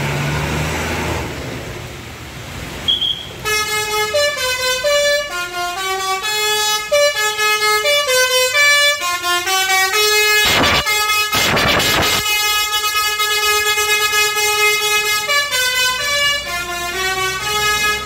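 Tour bus's Basuri 'telolet' multi-tone air horn playing a quick melody of stepped notes, starting a few seconds in and running for about fourteen seconds, with two brief noisy blasts a little past the middle.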